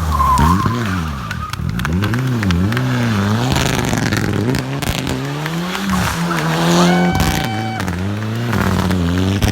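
Race car engine at a hillclimb, the revs rising and falling again and again as the driver works the throttle, then held briefly near the end.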